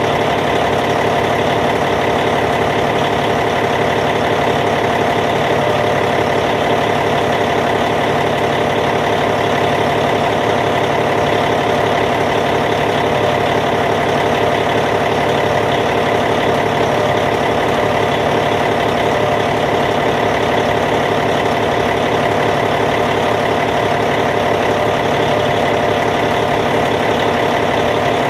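Caterpillar C15 inline-six diesel engine of a Cat D8T dozer idling steadily, the pitch and loudness unchanging.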